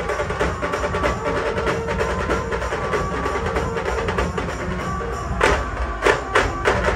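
Loud percussive procession music with a fast, steady beat, played over a DJ street sound system. Three or four sharp, loud hits come near the end.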